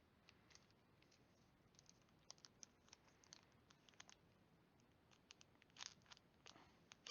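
Faint, scattered clicks and rustles of Pokémon booster packs being handled.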